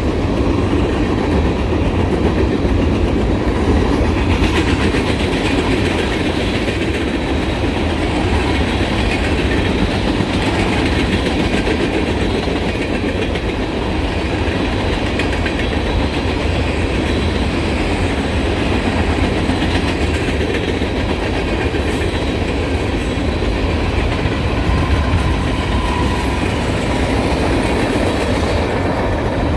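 Freight train rolling past at speed, a steady rumble with its wheels clicking over the rail joints.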